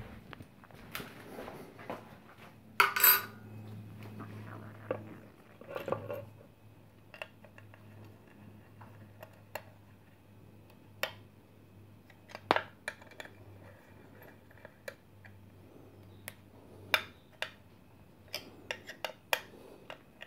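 Scattered metallic clinks and taps of an Allen key and machine screws as a milling-machine power feed unit is bolted to its mounting plate, with a louder clatter about three seconds in, over a faint steady hum.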